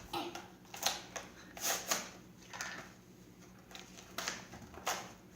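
Packaging of a toy candy dispenser crinkling and rustling as it is handled and opened by hand, in short irregular crackles with quieter gaps between.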